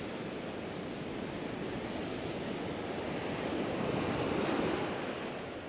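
Ocean surf breaking and washing up the sand close by, a steady rush that swells louder about three and a half seconds in, then eases.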